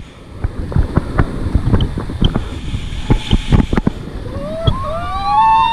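Rushing river water churning and slapping against a raft in rapids, with wind buffeting the microphone. Near the end a person lets out a loud rising whoop.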